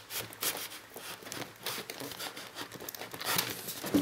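Hands working open a large boxed set's packaging: irregular crinkling, rustling and tearing sounds.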